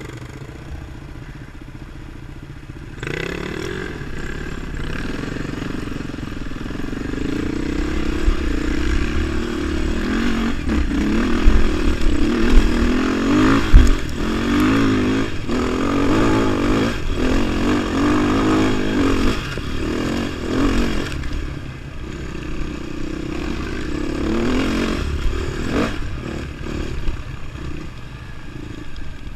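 Beta 450 RR's single-cylinder four-stroke engine idling, then pulling away about three seconds in. It accelerates up through the gears with repeated rises and drops in pitch, and eases off to a lower, uneven run in the last third.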